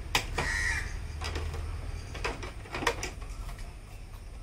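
Clicks and taps of hands working the body clips and plastic body of a Traxxas Slash RC truck, four sharp clicks spread over the few seconds. A short harsh bird call sounds about half a second in.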